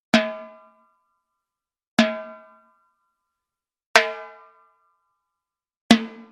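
Timbales struck four times, single hits about two seconds apart. Each hit has a sharp attack and a short metallic-shelled ring that dies away before the next.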